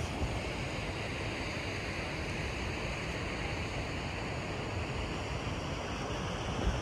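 Steady rushing of river water through a rocky gorge, with wind buffeting the microphone.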